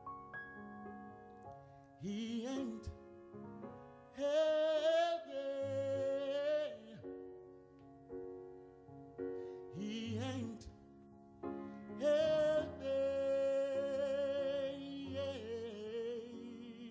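A male singer sings two long phrases in a soulful style. Each slides up into a high note about 2 and 10 seconds in and holds it with vibrato. Soft sustained piano chords play underneath.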